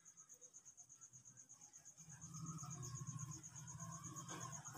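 Faint, high-pitched chirping in rapid, even pulses, like an insect such as a cricket, with a low hum coming in about two seconds in.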